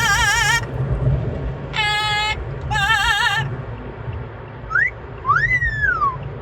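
Parrot whistling: three warbling, wavering notes in the first three and a half seconds, then a short rising whistle and a longer whistle that rises and falls near the end, over the car's steady low rumble.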